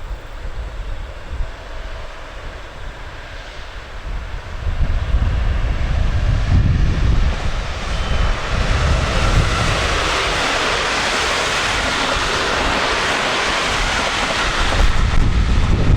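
A train passing on the line: a rushing noise that swells from about halfway in, holds for several seconds and cuts off sharply near the end, with wind rumbling on the microphone throughout.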